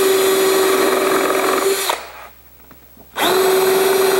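Power drill boring pilot holes in plywood with a #8 countersink pre-drill bit. It runs steadily, winds down and stops about two seconds in, then spins up again a little over three seconds in for the next hole.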